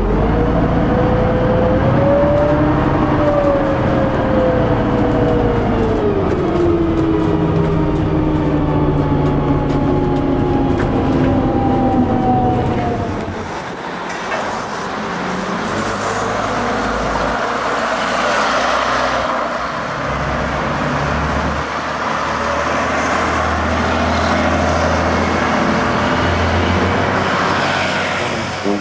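Inside the lower deck of an MCW Metrobus Mk II double-decker: the diesel engine runs with a transmission whine that rises and then falls in pitch as the bus drives. About halfway through it changes to a steady diesel bus engine heard from outside, with street traffic.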